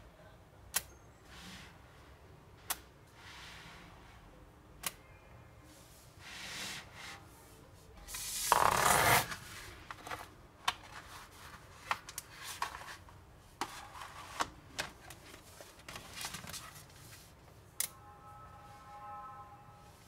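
Small magnetic metal balls clicking as slabs built from them are handled and snapped together: single sharp clicks a couple of seconds apart at first, a longer rattling scrape of many balls about eight seconds in, then a run of quicker clicks.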